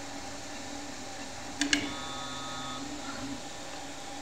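3D printer at work printing its second layer: a steady hum of its fans and motors, two sharp clicks about a second and a half in, then a short, steady whine of several tones as the print head moves.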